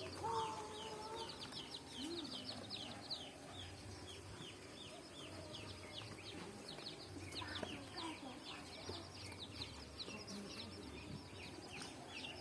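A crowd of young chicks peeping continuously, many short falling cheeps overlapping, with a few lower clucking calls among them.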